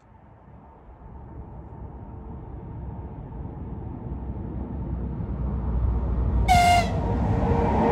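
ЭП20 electric locomotive hauling a passenger train on approach, the low rumble of the train on the rails growing steadily louder. About six and a half seconds in there is one short, high-pitched horn blast.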